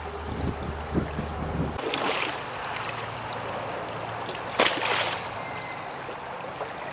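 Shallow river water sloshing around a wader's boots, with a steady low rumble of wind on the microphone that cuts off abruptly. Then a sharp knock about two-thirds of the way through.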